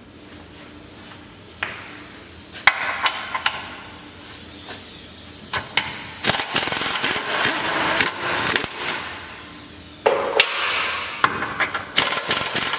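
Hand tools working on a car's front suspension: sharp metal knocks and clanks, with busier stretches of rattling and scraping from about six to nine seconds in and again near the end.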